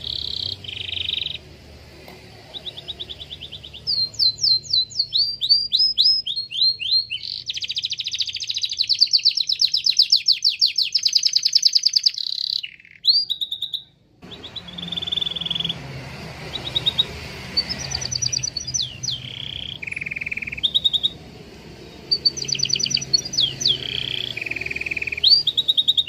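Domestic canary singing: rolling trills, quick runs of repeated notes and rising whistled sweeps, with a long, fast trill from about seven to twelve seconds in and a brief break near fourteen seconds.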